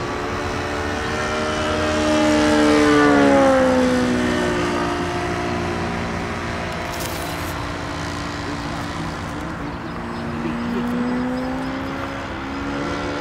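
Self-made Flamingo RC model airplane flying past, its motor and propeller droning. The sound grows louder and its pitch drops about three to four seconds in as the plane passes, then it grows louder again near the end as the plane comes around.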